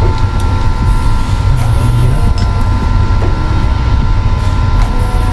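Steady low mechanical rumble with a constant high whine over it, and a few faint light clicks.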